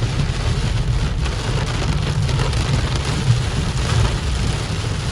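Heavy rain falling on a moving car, a steady hiss over a constant low rumble of the car driving on a wet road.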